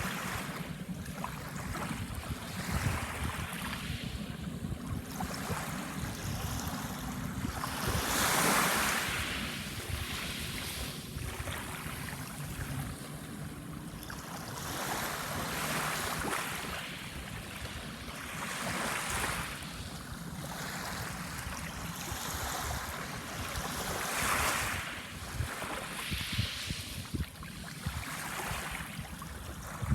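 Sea waves breaking and washing onto a sandbar shore, a new wash swelling up every few seconds. The biggest come about eight seconds in and again near twenty-four seconds.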